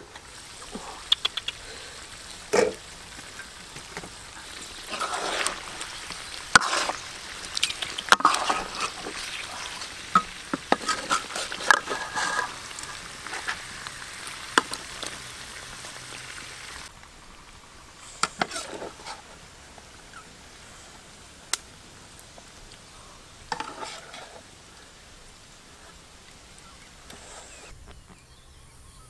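Braised pork belly sizzling in a pot, with sharp clinks and scrapes from the aluminium lid and a stirring utensil. The sizzling drops away a little over halfway through, leaving a quieter background with a few separate clinks.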